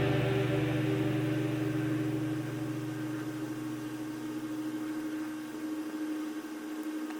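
Background music fading out: a held low note or chord slowly dying away.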